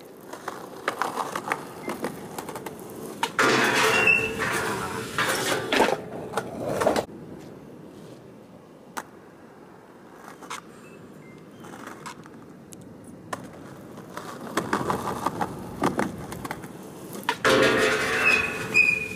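Skateboard wheels rolling over concrete and a truck grinding down a steel stair handrail, with a brief high squeal of metal on metal. The loud rolling and grinding comes twice, a few seconds in and again near the end.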